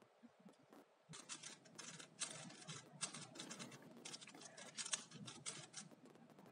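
Faint, quick clicking of the plastic faces of a YJ YuHu V2 M magnetic megaminx being turned by hand, a rapid run of turns starting about a second in and stopping near the end.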